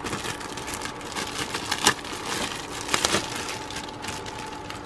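Clear plastic bag crinkling as a plastic model-kit parts sprue is handled inside it, with two sharper crackles about two and three seconds in.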